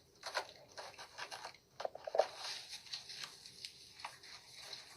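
Five-week-old puppies scuffling and chewing: a run of faint scratchy rustles and small clicks, with two short squeaks about two seconds in.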